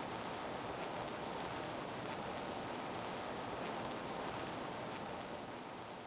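Steady hiss of background noise with no distinct sounds in it, beginning to fade near the end.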